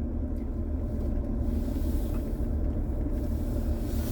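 Steady low rumble of a vehicle driving, with engine and road noise.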